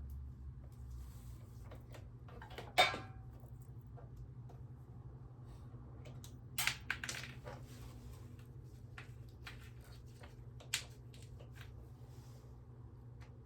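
Scattered metal clinks and clicks of hand tools and brake-line fittings being handled, over a steady low hum. The loudest clink comes about three seconds in with a brief ring, a quick cluster follows about halfway through, and a single one comes later.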